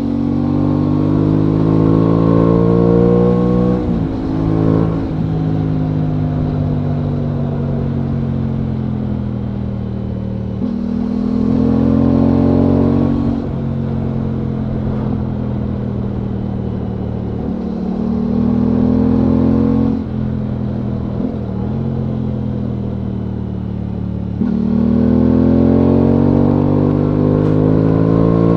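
Aprilia Tuono 660's parallel-twin engine pulling along the road, its pitch climbing under throttle and dropping sharply several times, then holding steady between climbs.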